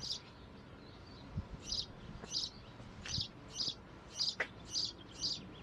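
A small songbird repeating a short, high chirp about twice a second.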